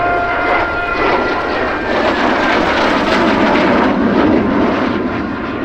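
Jet roar from the twin turbofans of an Alenia Aermacchi M-346 jet trainer, swelling to its loudest past the middle and easing off near the end.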